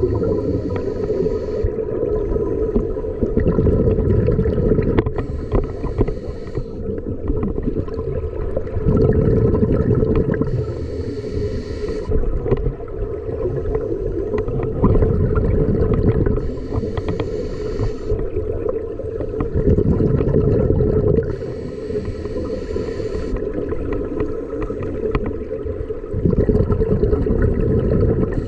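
Scuba regulator breathing underwater: a hiss on each inhalation, alternating with a burst of bubbling on each exhalation, repeating about every five seconds.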